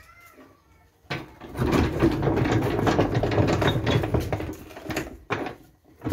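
Rapid mechanical clicking and rattling that starts about a second in and runs for about four seconds before dying away.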